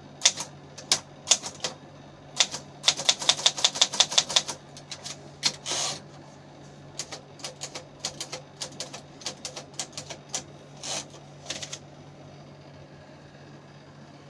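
Vintage Remington manual typewriter being typed on: sharp key strikes, a quick run of them in the first half, then slower, quieter strikes that stop about two-thirds of the way in. A steady low hum runs underneath.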